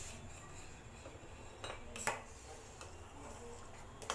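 Steel spoon stirring thick semolina kheer in a stainless steel pot, with soft scraping and a few light clinks of metal on metal, the clearest about two seconds in and another near the end.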